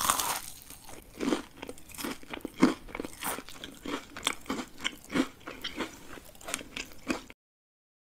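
A crisp fried hash brown being bitten and chewed close to the microphone: a crackling bite, then a steady run of crunches at about two to three a second that stops suddenly near the end.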